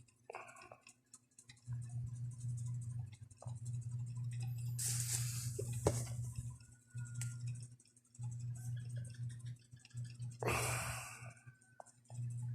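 Handling noises: scattered light clicks and two brief rustles, about five and ten seconds in, over a low hum that starts and stops several times.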